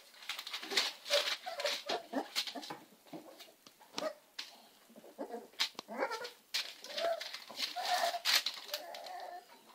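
American Staffordshire terrier puppies whimpering and squeaking in short, scattered cries, over the crackle of newspaper bedding as they crawl about.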